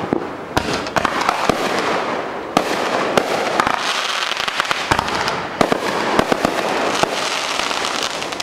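A fireworks display going off: a rapid string of bangs over a continuous crackling hiss.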